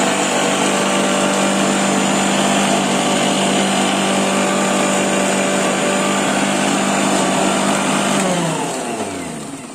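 Preethi Zodiac mixer grinder's motor running the juicer jar at a steady high speed while pomegranate seeds are pressed in and juiced. It is switched off about eight seconds in, and its pitch falls as it spins down.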